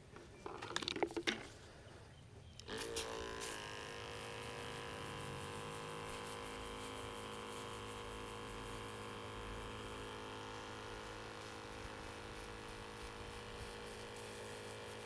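A small electric sprayer motor starts about three seconds in and then runs steadily, rinsing headstone cleaner off the stone. A few short knocks and rustles of handling come just before it starts.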